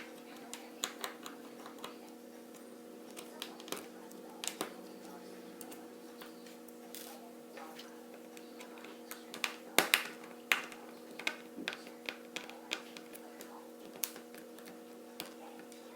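Small, irregular clicks and ticks of a Phillips screwdriver turning tiny screws out of a smartphone's plastic back housing, with the screws and tool handled and set down, loudest in a cluster about ten seconds in, over a steady low hum.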